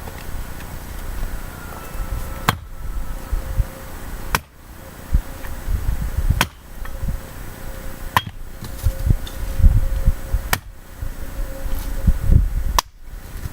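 Axe blows into firewood: six sharp strikes, about two seconds apart.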